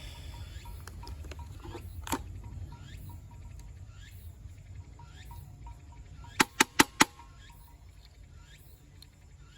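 Wood fire burning in a camp fire stand: a steady low rumble with scattered sharp crackles, and four quick, loud clicks about six and a half seconds in. Faint chirps repeat throughout.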